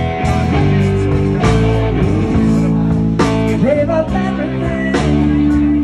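Live blues-rock band playing: electric guitars and a drum kit, with bent guitar notes and a cymbal crash about every two seconds.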